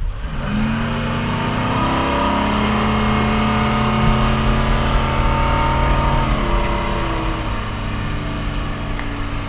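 Yamaha F350 V8 four-stroke outboard motor running under power at speed. Its engine note builds about half a second in, then holds steady, and the pitch shifts about six seconds in. A steady rushing noise runs beneath it.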